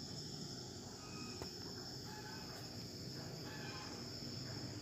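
Faint, steady high-pitched chirring of insects in the background over a low hum, with one faint click about one and a half seconds in.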